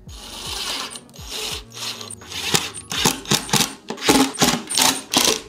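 Ryobi cordless driver driving screws through 3D-printed PLA brackets into plywood, running in a string of short bursts, about three a second, in the second half.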